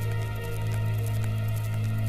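Dark, sustained background score: a steady low drone with held tones above it and faint ticks about twice a second.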